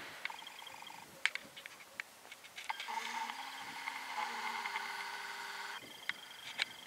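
Camcorder zoom motor whining steadily for about three seconds in the middle as the lens zooms out, over scattered light clicks.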